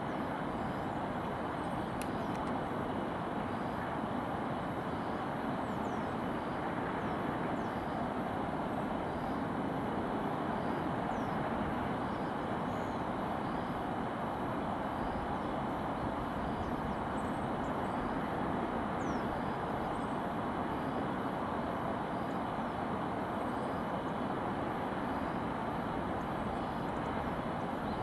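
Steady distant hum of city traffic, an even wash of noise with no single event standing out.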